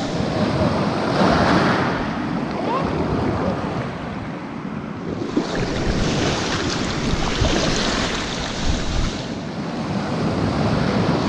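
Small surf waves breaking and washing up a shallow beach, swelling and easing every few seconds, with wind buffeting the microphone.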